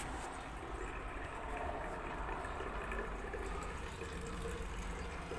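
Water rushing steadily through an LG inverter-drive washing machine running its test cycle, over a constant low hum, with a short click at the start. The machine is draining normally again now that the blockage is cleared.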